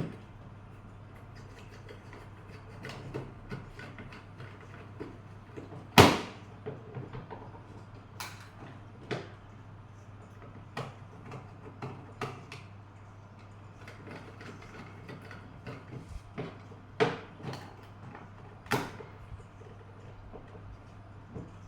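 Scattered clicks and knocks of hard plastic parts being handled during the repair of a broken extension-lead socket, the loudest knock about six seconds in, over a steady low hum.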